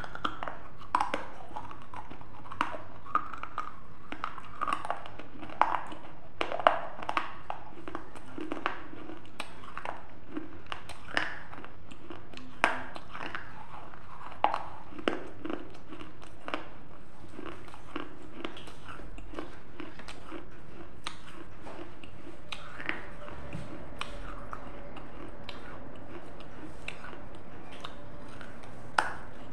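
Biting and chewing fragments of a broken terracotta clay pot: sharp crunches and cracks, frequent in the first half, sparse later, with one loud crack near the end.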